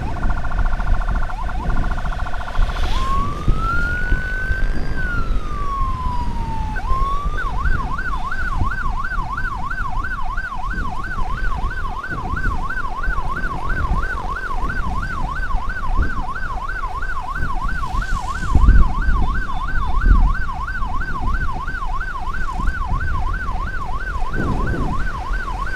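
Electronic emergency siren switching modes. It gives a rapid pulsing tone for the first few seconds, then one slow wail that rises and falls, then from about seven seconds in a fast yelp of about three up-down sweeps a second. A steady low rumble runs underneath, with a couple of loud thumps around eighteen to twenty seconds in.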